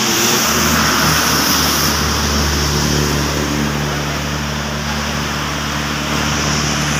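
Floodwater rushing fast beneath a bridge, heard as a steady wash of noise. From about half a second in, a vehicle's engine runs steadily close by.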